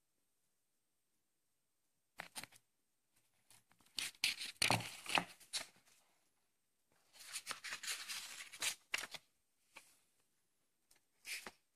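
Pages of a paperback book riffled and turned by hand: papery flutters and rustles in several bursts, starting about two seconds in, the longest two in the middle.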